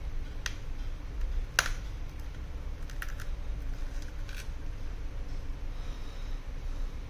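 A handful of small sharp clicks, the loudest about a second and a half in, as a thin pry tool is worked around the edge of an iPhone 11 Pro between screen and frame. A steady low hum runs underneath.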